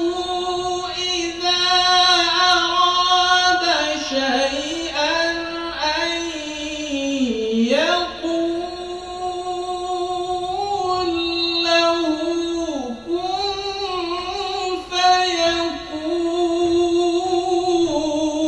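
A man reciting the Quran in the melodic tajwid style, holding long, high notes with ornamented glides. About seven seconds in, the voice slides far down and climbs back up.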